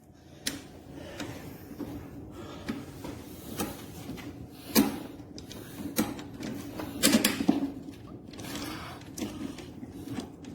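Irregular clicks and knocks of lawn mower parts being handled and fitted together during assembly, over a faint steady low hum.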